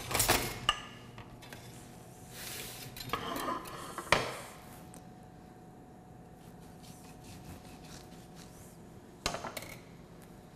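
Kitchen utensils and dishes being handled on a counter: scattered clinks and rustles, a sharp knock about four seconds in, and another short clatter near the end.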